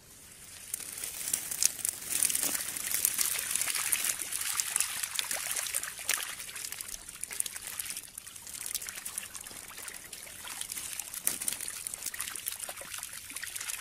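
Many small fish flapping on wet mud as a cast net full of fish is emptied, with water trickling from the net: a dense wet crackling that builds in about a second and is strongest in the first half.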